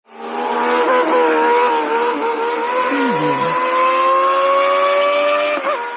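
Racing car engine at high revs, its pitch climbing steadily through the second half as it accelerates, with a brief dip in pitch near the end.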